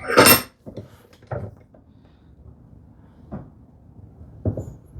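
Wooden slat and clamp being handled and set up on a workbench: one sharp knock near the start, then a few lighter knocks and taps.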